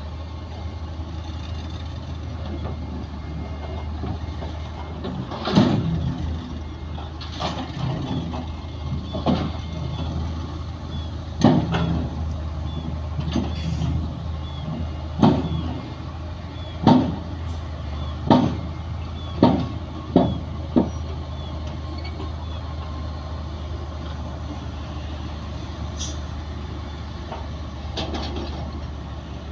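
Bulldozer diesel engine running with a steady low drone under load, with about ten sharp knocks in the middle stretch, a few seconds apart at first and then closer together.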